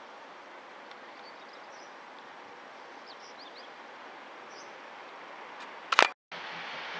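Steady outdoor background noise with a few short, high bird chirps. About six seconds in there is a sharp knock from the camera being handled, a brief cut-out, then a steady hiss.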